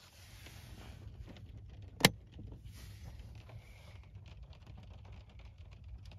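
Keys jangling with small clicks inside a parked car's cabin, one sharp loud click about two seconds in, over a low steady rumble.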